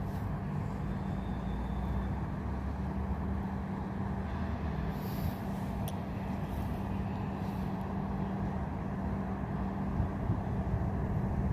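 Locomotive approaching slowly along the track, its machinery giving a steady low hum.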